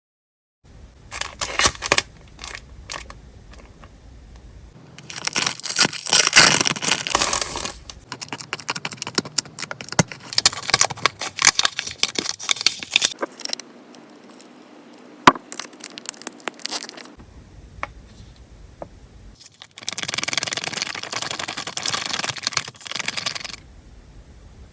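Thick, glossy candle-type slime being worked by hand, crackling and popping loudly in spells as air pockets burst through its surface film. The crackles start about half a second in and ease off into quieter handling twice.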